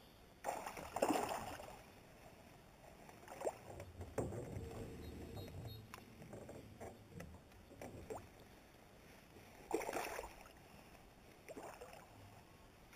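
A few short splashes and knocks of water against a small boat as a hooked smallmouth bass is fought up to the surface. The loudest come about a second in and again near ten seconds.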